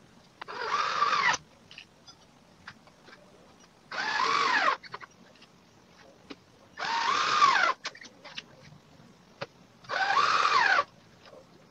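Cordless drill-driver driving pocket-hole screws into 15 mm melamine board in four short runs about three seconds apart. The motor's whine rises and then falls in each run, with small clicks between the runs.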